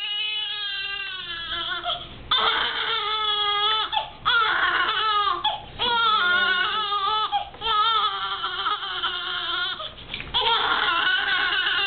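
Infant crying in a run of long, wavering wails, about six cries with short catches of breath between them.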